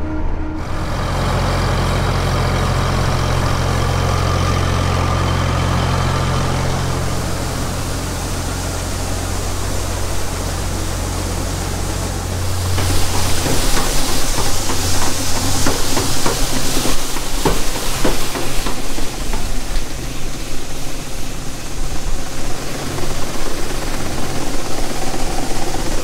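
Tractor engine running steadily, heard from inside the cab. About halfway through it gives way to a rushing wind-like noise, with irregular knocks and clanks of steps and hands on a galvanized steel grain-bin ladder.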